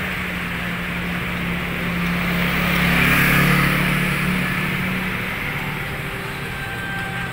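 A motor scooter passes close by, its small engine humming and its noise swelling to a peak about three seconds in, then fading away. Street traffic goes on behind it.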